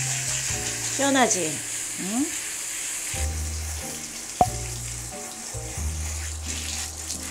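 Water spraying from a handheld shower head onto a dog's wet coat during a bath: a steady hiss.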